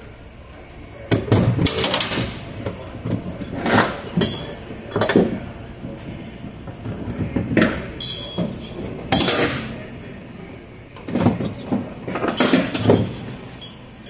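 Ratchet tie-down straps being handled: nylon webbing rubbing and sliding, with metal ratchet buckles clinking and clicking, in irregular bursts with short pauses.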